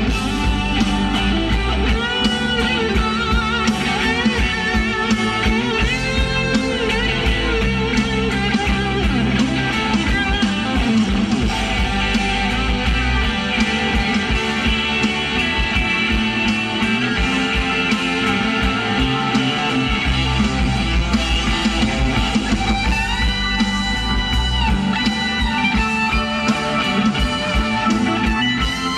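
Rock music with guitar playing through a car audio system of Hertz speakers and subwoofer, tuned with an Audison bit Ten signal processor, heard inside the cabin, with strong steady bass.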